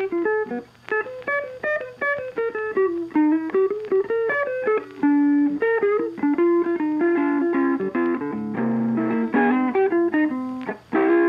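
Background music: a guitar playing a melody of single plucked notes.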